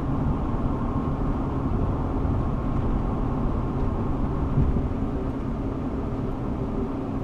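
Steady road and engine noise of a car being driven, mostly a low rumble that holds at an even level throughout.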